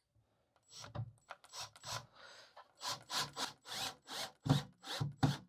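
Pocket-hole screw being driven into 3/4-inch boards: a series of short rasping, rubbing wood strokes, about two or three a second, with a low steady hum coming in near the end.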